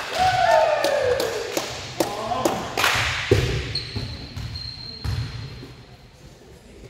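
Volleyball rally: a player's shouted call, then several sharp smacks of the ball being hit, the loudest about three seconds in.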